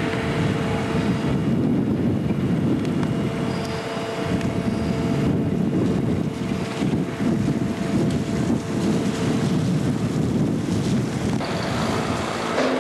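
Wind buffeting the microphone, with a steady hum running beneath it.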